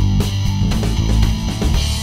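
Rock background music led by guitar, with heavy bass and a steady beat of about two strokes a second.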